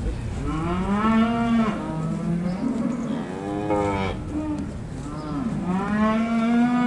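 Cattle mooing: three long moos, the first about half a second in, a shorter one around the middle, and the last near the end.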